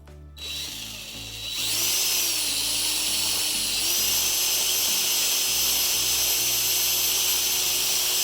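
Power drill running at high speed with a filed wire coat-hanger as its bit, drilling a pilot hole into plywood: a loud high whine that starts about a second and a half in, dips in pitch briefly, then holds steady. Background music plays underneath.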